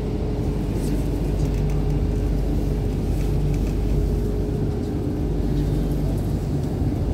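Hong Kong MTR Q-Train (Hyundai Rotem electric multiple unit) running between stations, heard from inside the carriage: a steady low rumble of wheels on rail and running gear, with a steady hum from the traction equipment that fades about two seconds in.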